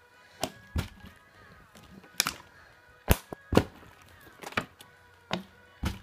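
Plastic water bottle being flipped and handled, giving about ten sharp knocks and thuds at uneven intervals, the loudest a little past the middle. Faint background music plays underneath.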